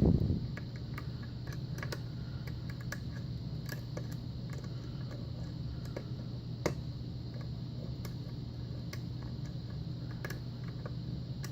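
Small, scattered clicks and taps of a lock pick working the pin stack of an old Russwin pin-tumbler lock under light tension, with one sharper click a little past halfway. A steady low hum runs underneath.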